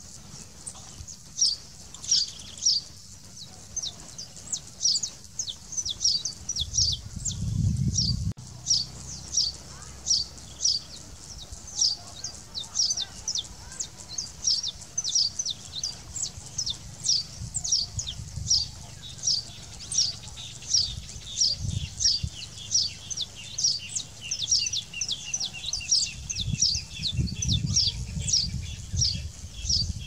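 Saffron finch chirping: a long, steady series of short, sharp, high chirps, about two to three a second.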